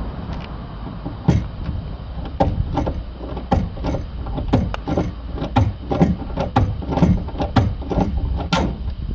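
Ratchet wrench with a long extension clicking in repeated short strokes as a bolt on the car door's window frame is turned.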